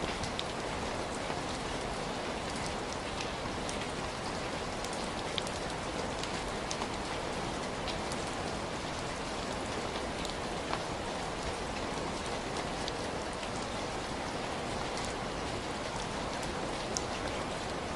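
Heavy rain falling steadily, an even hiss of rainfall with scattered sharper drops striking close by.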